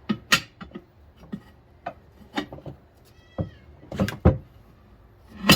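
Tire iron levering a tire bead over a steel rim on a manual tire changer: scattered metal clicks and knocks, a short squeal about three seconds in, and a loud sudden clack at the very end.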